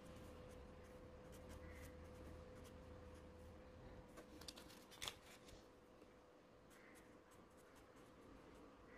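Faint scratching of a felt-tip marker writing on paper, with a sharper click about five seconds in and a faint steady hum underneath.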